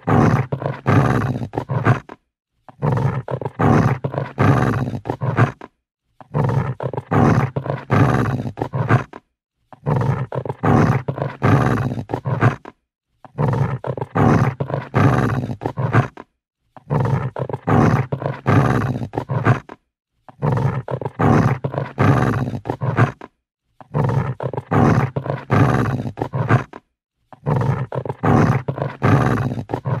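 Agitated dog growling: long, rumbling growls of about three seconds each, broken by short pauses and repeated at a steady pace, about nine times.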